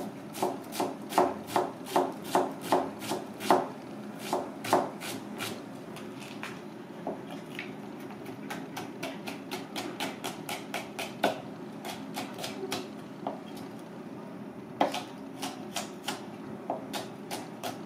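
Misono chef's knife chopping onion and then slicing green bell pepper on a plastic cutting board. It makes a run of sharp knocks, about two or three a second, that turn softer and more irregular through the middle and pick up again near the end.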